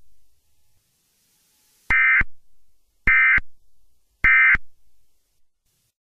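Emergency Alert System end-of-message signal: three short bursts of warbling data tones, about a second apart, marking the close of the alert.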